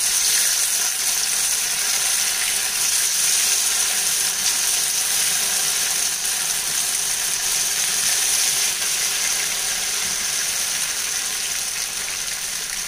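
Cut idli pieces deep-frying in hot oil in a stainless steel pan: a loud, steady sizzle of bubbling oil.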